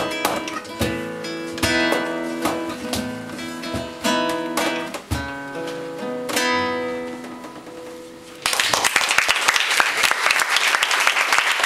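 Nylon-string acoustic guitar strummed and picked over low cajón beats, ending on a chord that rings out and fades. About eight seconds in, applause breaks out suddenly and carries on.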